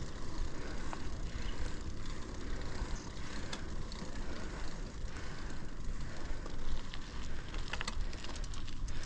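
Low, gusting rumble of wind on the microphone while riding a bicycle on a rough track, with a few sharp clicks and crunches, a cluster of them near the end.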